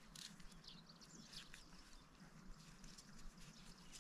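Near silence: faint open-air ambience with a low hum and a few faint, short scratches and ticks.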